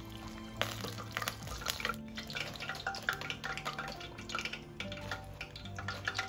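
Hot frying oil dripping and crackling from battered fried eggplant pieces held in a wire mesh strainer over the wok, with many small irregular clicks as the pieces are turned with chopsticks; soft background music underneath.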